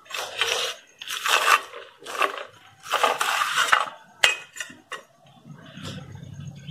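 Crisp deep-fried bread pakoda crunching and scraping as it is handled, in four or five short bursts, followed by two sharp clicks a little after four seconds in.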